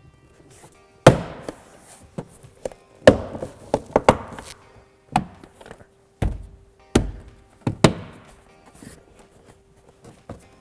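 Plastic retaining clips of a Subaru Crosstrek front door trim panel being pressed and knocked back into the door by hand. About eight sharp snaps and thumps come at uneven intervals as each clip seats.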